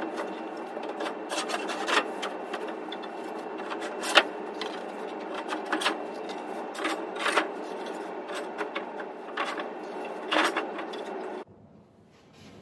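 Wooden deck boards being slid down into the channels of fence posts and stacked: a steady scraping rub of wood in the channels, with sharp wooden knocks every second or two as boards drop into place. It stops abruptly near the end.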